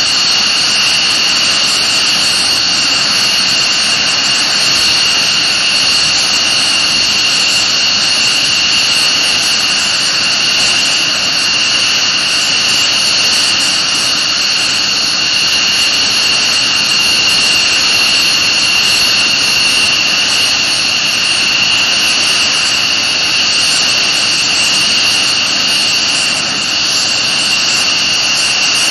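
F-15C Eagles' Pratt & Whitney F100 turbofan engines running on the ground at low power: a steady, loud roar with a high, even whine on two pitches.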